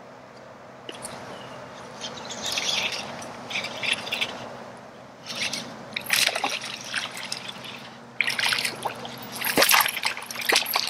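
Water splashing and trickling around a kayak in irregular bursts, with a few sharp clicks near the end.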